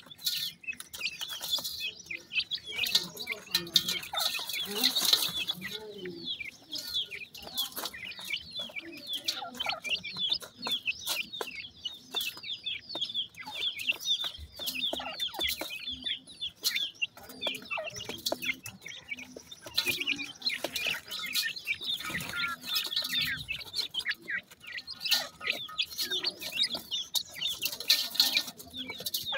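A group of young grey francolin chicks peeping and chirping almost without pause as they feed, the calls thickest near the start and again in the last third, mixed with frequent sharp clicks of beaks pecking at gritty feed.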